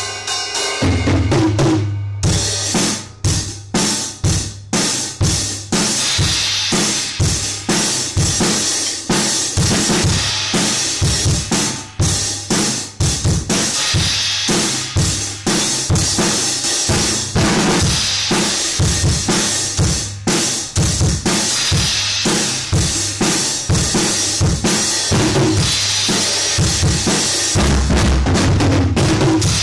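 Pearl drum kit played in a fast, busy groove: bass drum, snare and cymbals struck over and over, the cymbals ringing continuously above the drums.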